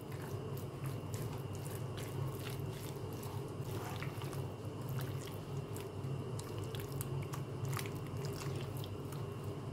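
Raw chicken pieces being tossed and turned in a spice marinade in a glass bowl with tongs: wet squishing and squelching with scattered light clicks. A steady low hum runs underneath.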